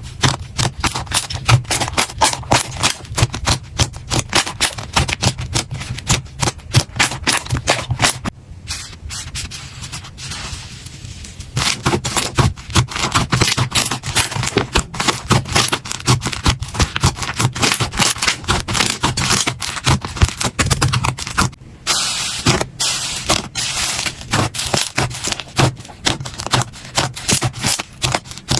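Slime being squeezed and pressed by hand, giving a dense run of rapid crackling and popping clicks, softer for a few seconds about a third of the way in.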